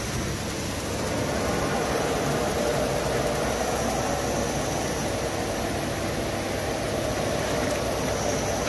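COPLAS 55 mm blown film extrusion machine running: steady, even machine noise with a faint high-pitched whine.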